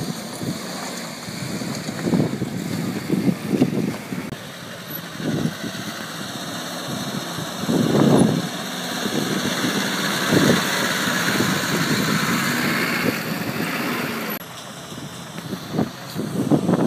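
Engines of off-road 4x4s running at low revs as they crawl over rocks, surging unevenly. The sound changes abruptly about four seconds in and again near the end.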